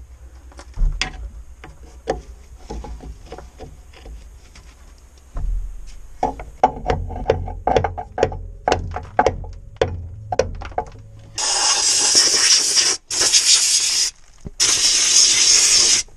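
Screwdriver scraping and picking packed road grime and asphalt out of the coil-spring pocket of a lower control arm, a run of short metal scrapes and clicks that gets busier about six seconds in. About eleven seconds in, an aerosol spray can hisses in three long blasts.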